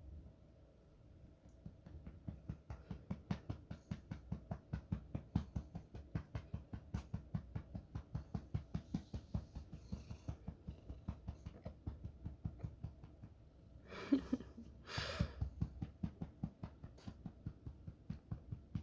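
A cat purring close to the microphone in a fast, even pulse, with two short sharp bursts of breath about fourteen and fifteen seconds in: a tickled nose that doesn't quite bring out a sneeze.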